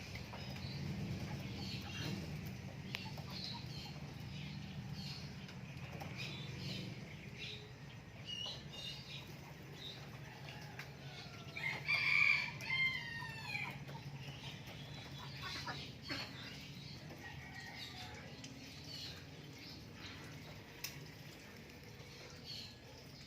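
A rooster crows once about halfway through, the loudest sound here. Scattered short bird chirps run around it, and a low hum fades away in the first third.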